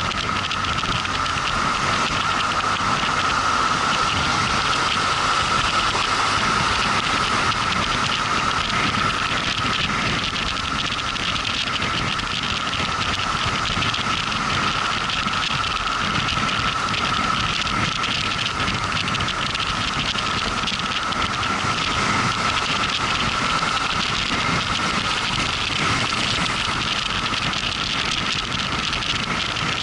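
Motorcycle riding along at a steady pace: a continuous rush of wind and road noise with a steady whine held throughout.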